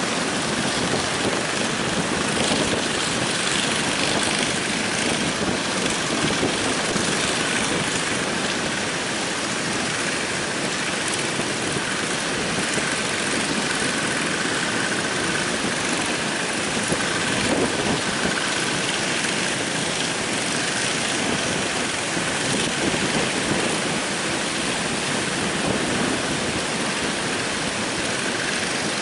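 Heavy surf breaking on the beach in a steady rush, blown by strong wind. Around the middle, the faint hum of a fishing boat's engine runs underneath as the boat comes in through the breakers.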